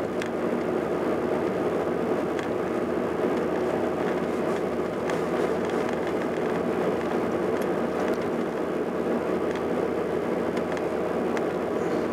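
Steady road and engine noise of a car cruising, heard from inside the cabin, with a few faint ticks.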